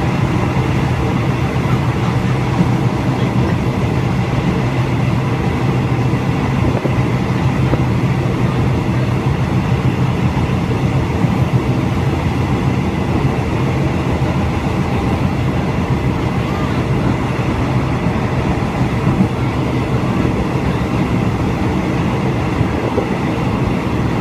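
Moving train heard from on board: a steady, even running rumble with a faint constant hum of tones over it.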